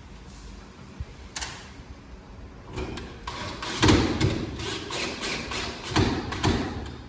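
Several thuds and knocks with rattling in between, from handling and fitting a lock in an aluminium door. The loudest knocks come about four seconds in and again about six seconds in.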